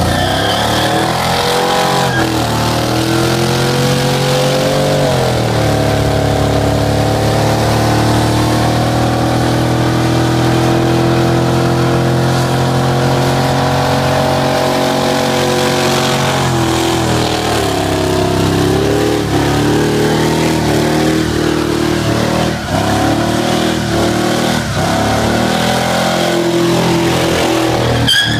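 Chevrolet Silverado's 6.0-litre V8 held at high revs through a burnout while the rear tyres spin. The engine note stays steady, dips briefly about five seconds in and again past the middle, and wavers unevenly near the end.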